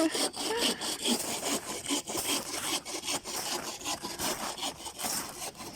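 Hand saw cutting through firewood with steady back-and-forth rasping strokes.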